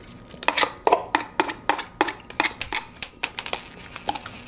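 A quick run of light clicks or taps, about three a second, then a high, steady metallic ringing that lasts about two seconds.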